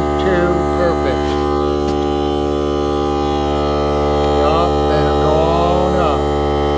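Ryobi 18-volt cordless portable air compressor running with a steady motor hum.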